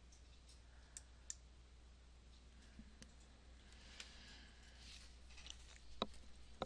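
Near silence: room tone with a few faint clicks, two about a second in and another near the end.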